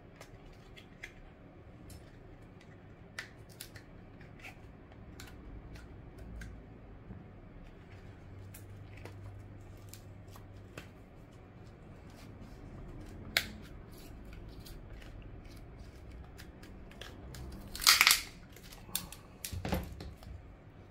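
Plastic pry card and small phone parts being handled: scattered light clicks and taps, then a loud rasping, scraping burst about three quarters of the way through as the battery is pried free of the old screen frame.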